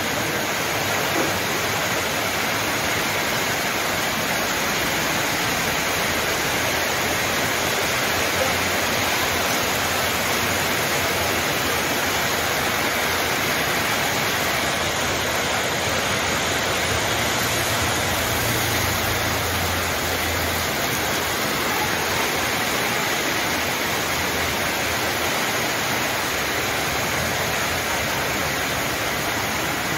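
Heavy tropical downpour, a steady even hiss of rain.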